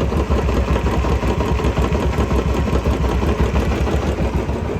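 Royal Enfield 350 single-cylinder engine idling steadily just after a cylinder-head rebuild with new valves and valve guides, running without the tik-tik valve noise, which the mechanic takes as the noise being gone.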